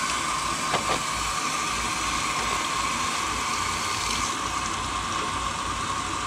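Flushing water pouring out of a 1934 Ford radiator's bottom outlet pipe and splashing steadily into a puddle on gravel, with a couple of small clicks about a second in.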